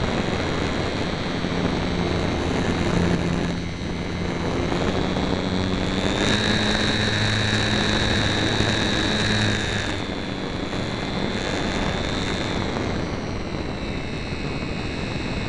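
HobbyZone Super Cub RC plane's electric motor and propeller whining in flight, heard from a camera on board the plane over a steady rush of air. About six seconds in the whine climbs higher and louder, then drops back about four seconds later.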